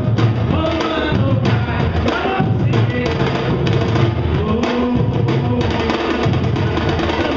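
A samba-reggae drum section of surdo bass drums and repinique playing a steady, driving groove, with a lead singer's voice over it through a PA.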